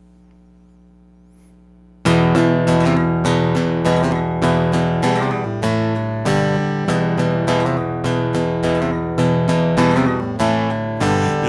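Acoustic guitar strumming chords, starting suddenly about two seconds in after a faint low hum: the instrumental opening of a song.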